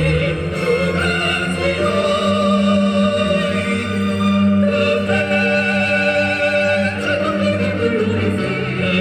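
Live operatic singing with orchestral accompaniment, with long held notes in a theatrical, musical-theatre style.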